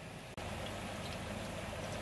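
Thick curry paste bubbling faintly in a pot. After a sudden cut about a third of a second in, tofu deep-frying in hot oil: a steady, louder sizzle.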